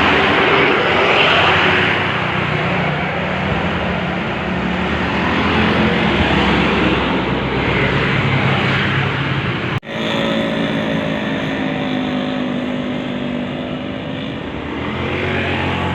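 Tour bus passing close, its engine and road noise loud. There is an abrupt cut about ten seconds in, followed by a steadier pitched drone.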